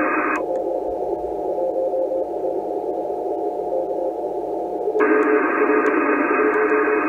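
ICOM IC-746 shortwave transceiver receiving in CW mode: band hiss with a weak Morse code signal keying faintly through it. About half a second in the hiss turns duller and narrower as a narrow IF filter is switched in, and about five seconds in it opens back up to the wider, brighter hiss.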